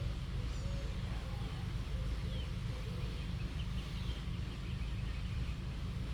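Steady low outdoor background rumble, with a few faint, short high-pitched bird chirps scattered through.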